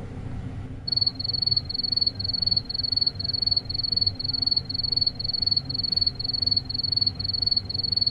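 Cricket chirping sound effect: a high, steady-pitched chirp repeated about twice a second, starting about a second in, over a low background hum. It is the stock 'awkward silence' crickets cue.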